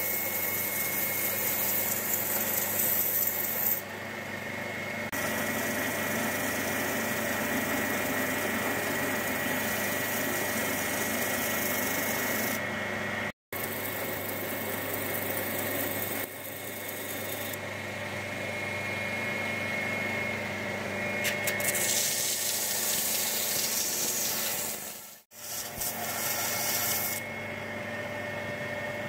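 Bench belt sander running, with a linen micarta knife handle and its G10 liners pressed against the abrasive belt to shape it: a steady motor hum under a grinding hiss that rises and falls with the pressure. The sound cuts off abruptly for a moment twice, about 13 and 25 seconds in.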